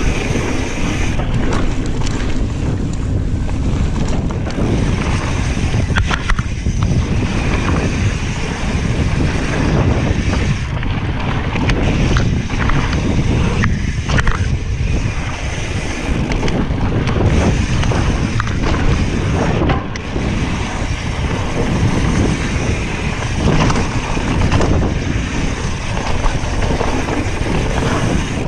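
Wind rushing over the microphone with knobby tyres rumbling over a dirt trail and the bike rattling, as a mountain bike rides downhill at speed. Steady throughout, with a few sharper knocks and clicks from bumps.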